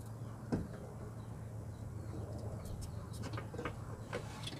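Small clicks and scrapes of plastic headlight parts being handled and fitted at the back of the headlight housing, a few at first and more in the second half, over a steady low hum.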